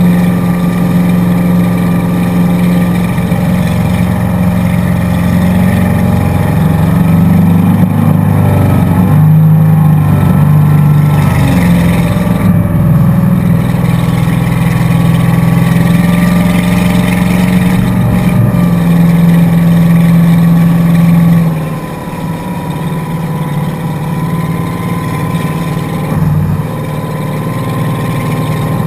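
Motorboat engine running steadily at speed while towing, with the rush of the churning wake. About three quarters of the way through the engine eases off, becoming quieter and a little lower in pitch.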